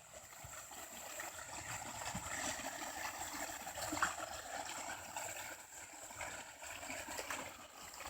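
Faint, steady trickling and rushing of river water, with a light knock about four seconds in.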